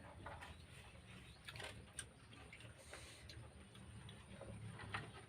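Very quiet eating: faint, irregular small clicks of chewing and mouth sounds over a low steady hum.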